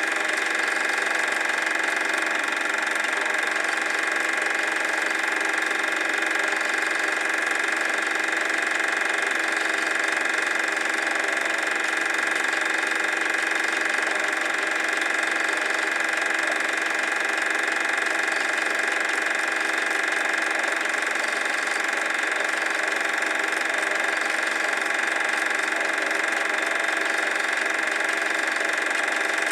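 Super 8 film projector running, a steady mechanical whirr and clatter from its motor and film transport.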